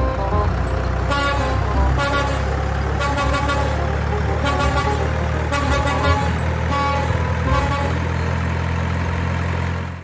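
Semi tractor-trailer's diesel engine running steadily as the rig drives past. A series of short, bright toots sound over it about ten times.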